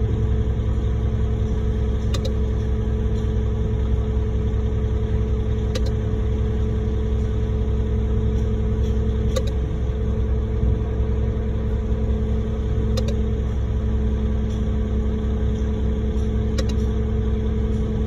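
Concrete mixer truck's diesel engine idling steadily, with a light click about every three and a half seconds.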